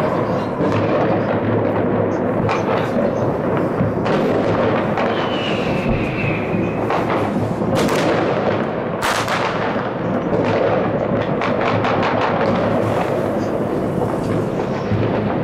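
Fireworks and firecrackers going off all over a city at once: a continuous rumble of many overlapping distant bangs and crackles. Two sharper, louder bangs come about eight and nine seconds in, and a high whistle lasts a couple of seconds near the middle.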